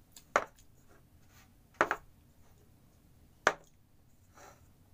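Three sharp clicks, about a second and a half apart.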